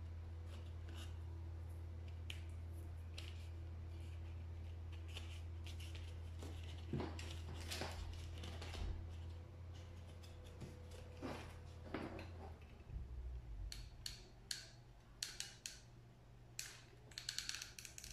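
Paper plate and pipe cleaner being handled on a tabletop: scattered rustles and taps, then a run of quick sharp clicks near the end as a hot glue gun is taken up and its trigger squeezed. A low steady hum runs underneath and stops about two-thirds of the way through.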